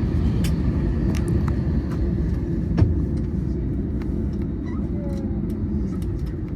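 Steady low rumble inside an Airbus A321neo cabin during boarding, with scattered light clicks and one sharper knock a little under three seconds in.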